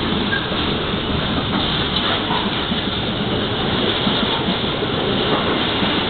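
Container freight train running past close along a station platform: the steady, loud noise of its container wagons rolling over the rails.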